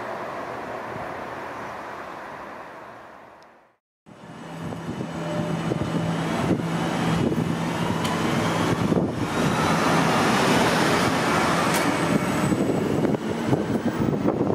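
A train running on rails fades away. After a brief cut, a second train grows louder, with a low hum, a whine that rises in pitch as it picks up speed, and a few sharp wheel knocks on the track.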